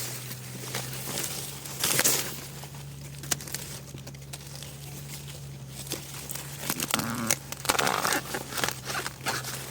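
Rustling and crinkling with scattered clicks and crackles, busiest about 2 s in and again near the end, over a steady low hum.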